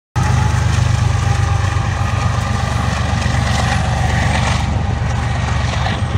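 Diesel-electric freight locomotives running with a steady, loud engine drone and a strong low hum.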